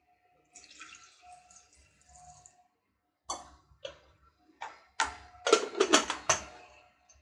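Water poured into an aluminium Pigeon pressure cooker over cut green bananas. About three seconds in come sharp metal clicks and clanks, loudest in a cluster near the end, as the lid is fitted and shut.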